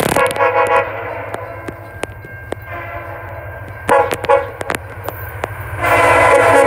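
Locomotive air horn sounding: a short blast at the start, another short blast about four seconds in, then a long loud blast from about six seconds on.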